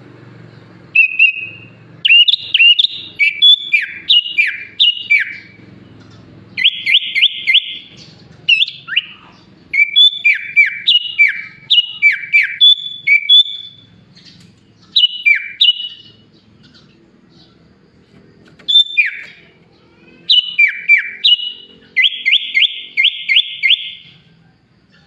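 Sooty-headed bulbul (kutilang) singing loudly in bursts of clear whistled phrases, many with sharply falling notes, and twice a quick run of repeated notes. Its song is laced with mimicked phrases of other birds such as the ciblek, cucak ijo and jalak suren.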